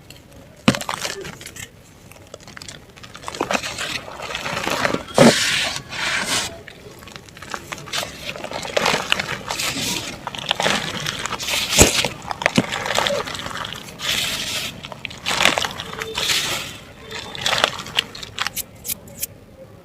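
Chunks of dry mud and black dirt crumbling and crushing, a run of irregular gritty crackles and soft crunches with short pauses between handfuls.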